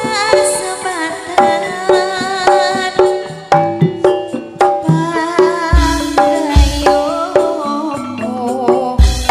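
Live campursari music: kendang hand drums beating a rhythm under pitched melody notes, with a few deep drum thumps, the clearest about six and nine seconds in. A female sinden sings over it with a wavering voice.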